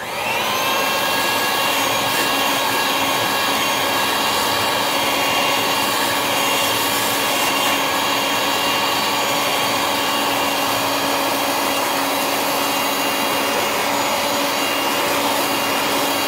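Electric whisk switching on with a brief rising whine, then running steadily as its wire whisk beats egg whites with black pepper to a froth in a stainless steel bowl.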